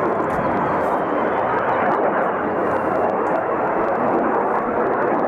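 Jet aircraft flying overhead: loud, steady jet noise.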